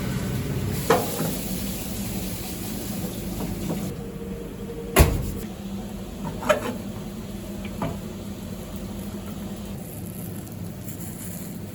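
Food-prep clatter at a crepe stall: a few sharp knocks over a steady background hum, the loudest knock about five seconds in.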